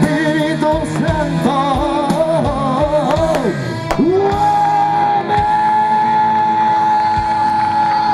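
Live rock band with a male singer, recorded from the audience. A wavering sung line runs over drums, then from about four seconds in one long note is held steady over the band.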